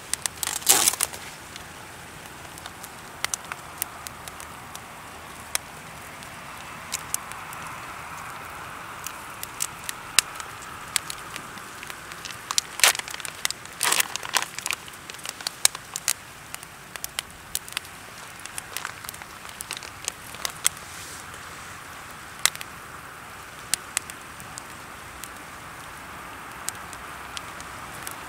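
Wood campfire crackling, with scattered sharp pops over a steady hiss. A cluster of louder pops comes near the start and another about halfway through.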